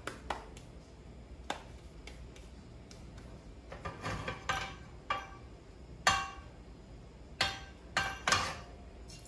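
A frying pan being handled on a portable gas stove: a scattering of sharp metallic knocks and clanks, some with a brief ring. The loudest comes about six seconds in, and a cluster follows near the end.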